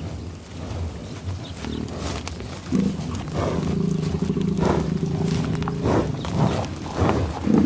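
American bison giving a long, low growl of about three seconds that starts about a third of the way in, followed by a few short huffs.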